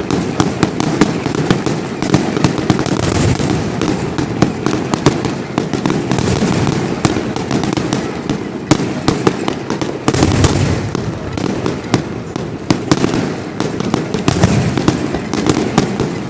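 Fireworks display going off in a continuous barrage: sharp bangs and crackles several times a second over a constant rumble, with a heavier cluster of booms about ten seconds in.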